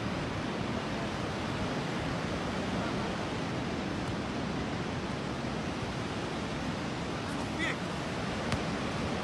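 Steady surf and wind noise on the microphone, with a brief faint high call about seven and a half seconds in.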